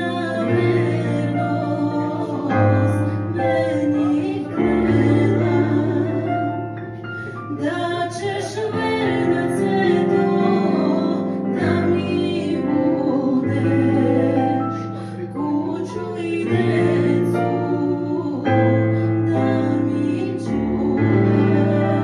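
A woman singing a Balkan folk song into a microphone, with live electronic keyboard accompaniment of held bass notes and chords.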